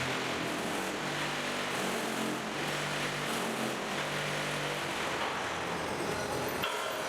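Concrete block-making machine running: a steady, dense mechanical noise with a low hum that comes and goes every second or so, changing character near the end.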